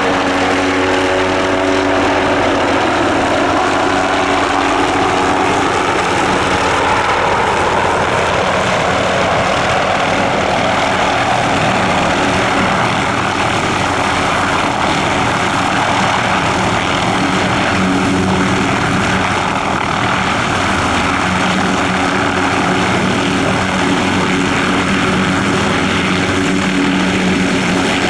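MD Helicopters MD 530F light helicopter running, its rotor noise and turbine sound steady throughout, with a thin high whine over the top.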